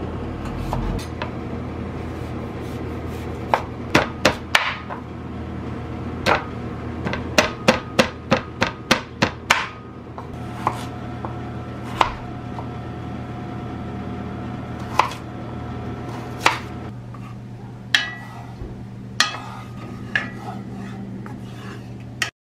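Large kitchen knife chopping peeled taro root on a wooden cutting board: sharp knocks of the blade striking the board. There is a quick run of chops a few seconds in and a faster run of about nine near the middle, about four a second, then single strokes spaced a second or more apart.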